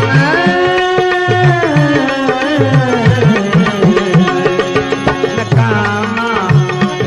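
Bhajan music: tabla playing a steady rhythm under a melody that slides between held notes, with a wavering, ornamented phrase near the end.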